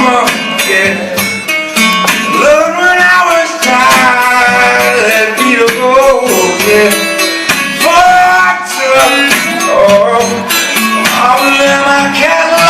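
Live blues-country band playing an instrumental break: strummed acoustic guitar under a lead line that bends up and down in pitch.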